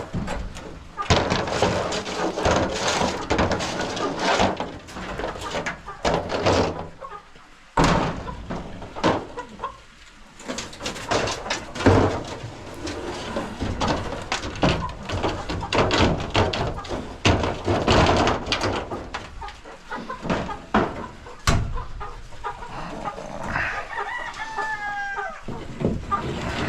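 Irregular scraping and knocking of a metal coop scraper on the droppings shields inside a chicken coop, with hens clucking. A rooster crows once near the end.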